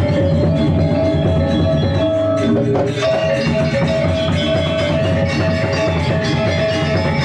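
Balinese gamelan playing: metal bronze-keyed instruments and drums in a fast, dense, continuous ringing texture.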